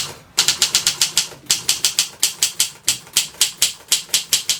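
Typing on a Triumph Durabel manual typewriter: a quick, even run of sharp type-bar strikes, about five a second, with a couple of brief pauses.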